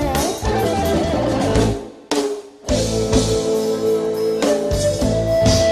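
Live band music from an Isan stage show, with drums and a beat. About two seconds in the music stops abruptly for a moment, then the band comes back in with held notes.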